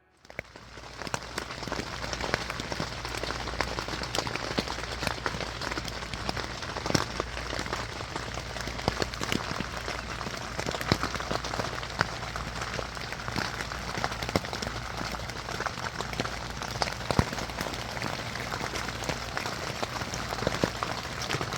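Steady rain falling, with many separate drop hits clicking on a surface.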